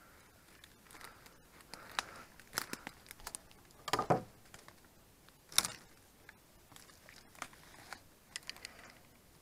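Twigs and branches cracking and rustling as a person pushes through dense undergrowth, with irregular crackles and a few sharper snaps, the loudest about four and five and a half seconds in.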